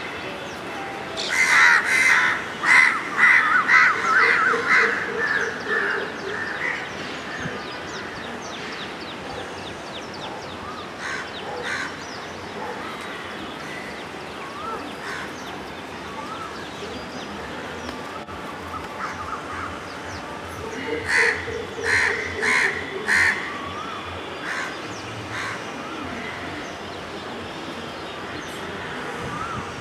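Birds calling outdoors: a bout of rapid repeated calls a couple of seconds in, fainter scattered calls after it, and a second short bout of repeated calls past the middle, over steady background noise.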